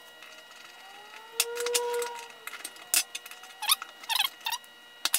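Steel parts of a Stanley Bailey #4 hand plane clinking and clicking in a run of light taps as the blade and lever cap are fitted and a screw is turned with a screwdriver. A faint tone rises and falls in pitch about a second and a half in.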